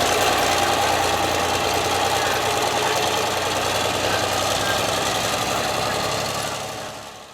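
Engine of a 1940 Sterling chain-drive truck running steadily, fading out near the end.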